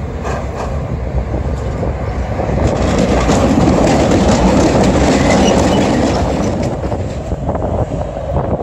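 Düwag GT8 articulated tram passing close by, its wheels rumbling on the rails. It grows louder as it comes alongside about three seconds in and fades after about six seconds.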